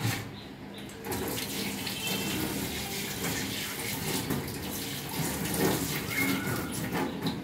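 Kitchen tap running into a stainless-steel sink while hands are rinsed under the stream. The water starts about a second in and runs steadily until near the end.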